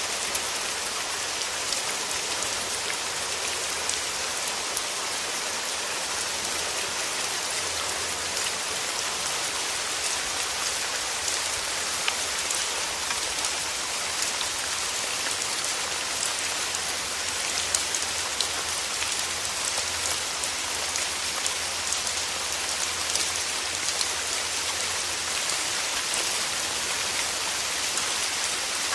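Steady rain falling on a surface, a dense even hiss flecked with the taps of individual drops.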